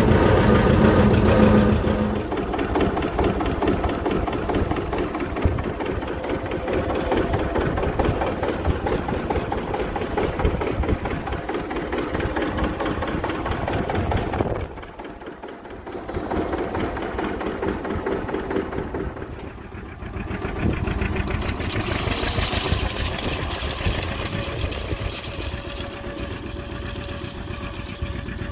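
1951 John Deere R's two-cylinder diesel engine running steadily under load while pulling a harrow, heard close by. Its loudness drops briefly about halfway through and again a few seconds later.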